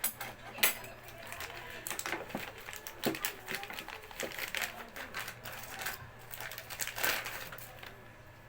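Tools and their packaging being handled and unpacked: irregular clicks, knocks and rustling. They thin out near the end.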